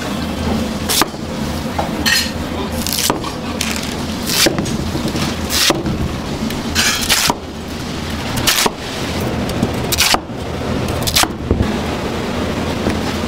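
Large kitchen knife cutting through a Korean radish (mu) on a cutting board, slicing off the skin and cutting it into slabs: a string of sharp crunching strokes, irregular and roughly a second apart, over a steady low hum.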